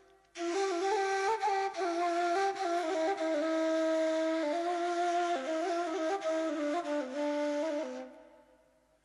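Instrumental background music: a slow melody moving in two parallel lines, starting just after the beginning and fading out near the end.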